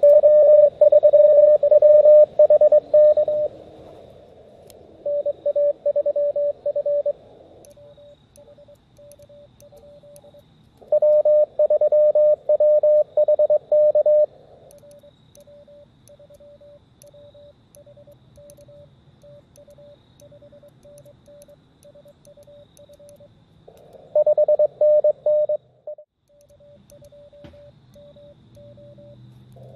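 Morse code (CW) tones at one steady pitch from an Elecraft KX2 transceiver on the 40-metre band. There are loud runs of keying of about three seconds each near the start, in the middle and near the end, which are the station's own sending heard as sidetone, with fainter keyed signals from other stations between them over a low hiss of band noise.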